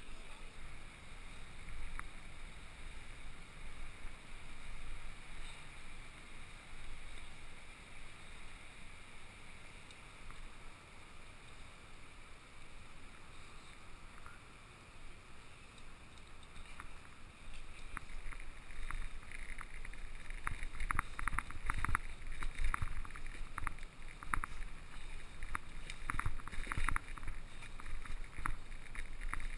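Bicycle ride heard through a handlebar-mounted camera: a low rumble with wind on the microphone. From a little past halfway, rapid clattering rattles grow louder.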